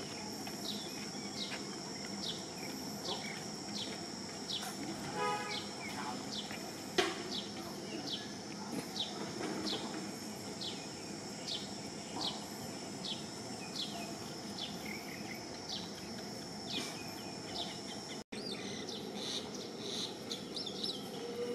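Forest insects: a steady high-pitched drone with short falling chirps repeating a bit more than once a second. A brief pitched call sounds about five seconds in, and a single sharp click about seven seconds in.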